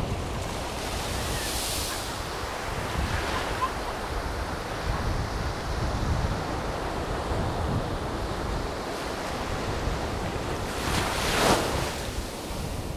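Surf washing onto a beach in the wind: a steady roar of waves over a low wind rumble, swelling to its loudest as a wave surges in about eleven seconds in.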